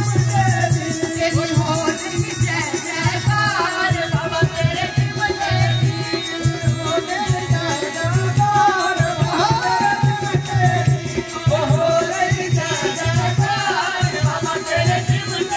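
Live Punjabi devotional folk song: a woman sings over harmonium, with a drum keeping a steady beat and the jingling of a chimta (fire tongs fitted with metal jingles) over the top.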